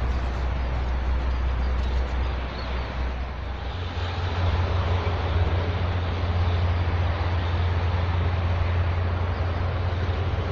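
Steady low engine drone, its pitch stepping up about three and a half seconds in, over a constant even hiss.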